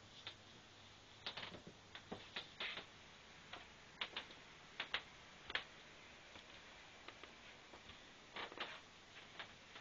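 Irregular light clicks and taps, a few a second and sometimes in quick clusters, over a faint steady low hum.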